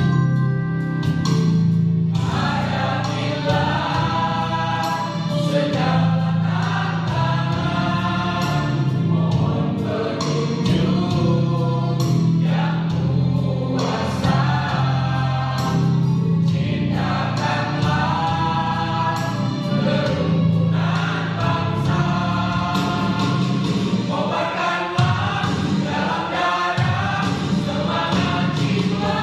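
Mixed choir of men's and women's voices singing together to electronic keyboard accompaniment. The keyboard plays alone for the first second or two before the voices come in.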